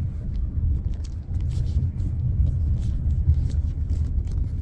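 Steady low rumble of a Chevrolet Equinox driving, heard from inside the cabin: road and tyre noise with light scattered clicks and rattles.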